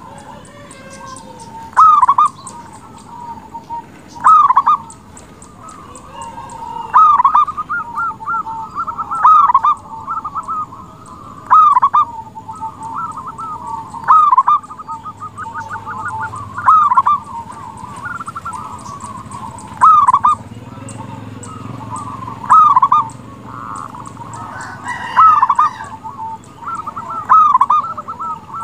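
Zebra dove (perkutut) singing its cooing song: a loud phrase repeated about every two and a half seconds, with softer runs of quick notes in between.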